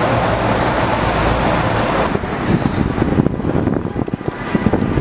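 A motor vehicle passing close by on a city street: a loud rush of engine and tyre noise with a low rumble that dies away about two seconds in, leaving choppy traffic noise and rumbling on the microphone.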